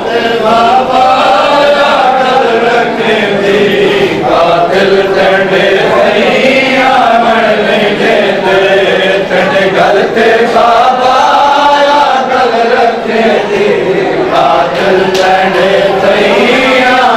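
Men's voices chanting a Shia mourning lament (nauha) together in a slow melody that rises and falls in long phrases.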